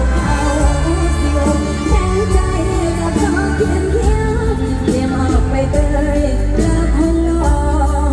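Live mor lam band music: a singer's voice over electric band accompaniment with a strong bass line and a steady drum beat.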